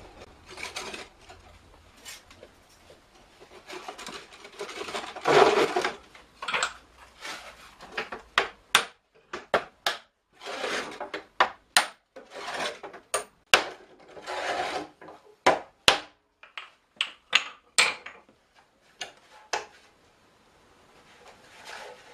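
Wooden barrel staves rubbing and scraping against each other and the metal hoops as they are fitted by hand. From about eight seconds in, many sharp wooden clacks come between the scrapes, fading near the end.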